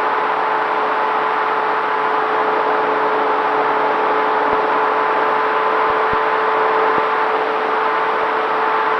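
Electric motor and propeller of a Dynam T-28 Trojan RC plane in flight, heard from a camera on board: a steady whine at constant pitch over a rush of air.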